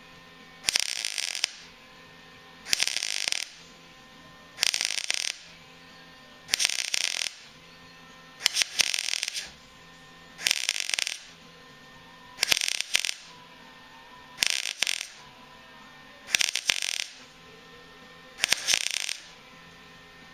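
MIG welder stitch-welding sheet-steel frame repair panels: about ten short bursts of crackling arc, each under a second long, roughly every two seconds.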